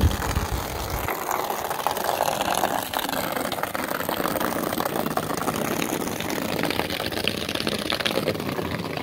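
A stream of water from a garden hose splashing and pattering steadily into a plastic kiddie pool, with a low rumble on the microphone during the first second.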